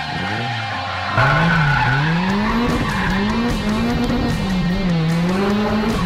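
Nissan Silvia S14's turbocharged SR20DET four-cylinder engine revving up and down repeatedly while the car drifts, with tyres skidding. It gets louder about a second in.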